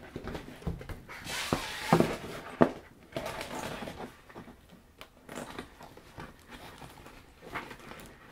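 Handling noise of a white background sheet being fitted inside a fabric light box tent and pressed onto Velcro tabs: rustling of sheet and fabric, with a few sharp taps a couple of seconds in.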